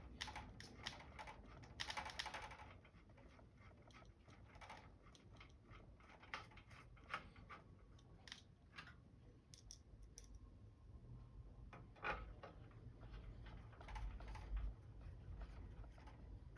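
Faint, scattered small clicks and scrapes of a screwdriver driving Phillips screws back into a monitor's casing, with a denser scraping run about two seconds in and a few soft knocks of handling later on.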